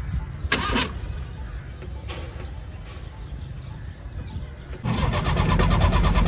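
An old car's starter motor cranking the engine in fast, even pulses, beginning about five seconds in, with the engine not yet catching. A short sharp noise sounds about half a second in.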